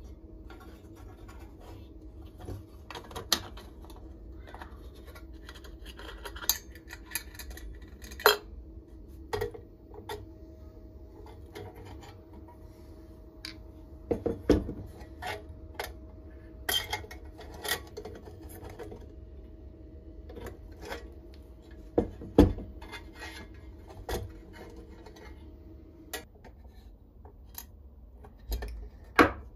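Metal parts of an old hurricane oil lantern being handled and taken apart with a screwdriver: scattered clinks, knocks and scrapes of thin metal against metal and the table.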